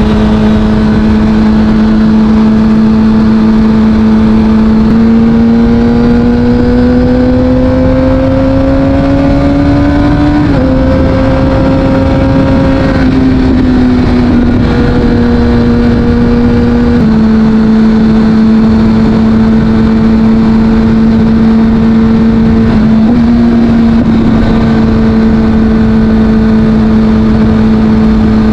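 Kawasaki Ninja ZX-6R's inline-four engine running through an Akrapovic exhaust at steady cruising revs. About five seconds in, the revs climb for several seconds, then drop with an upshift. After that it settles back to a steady drone.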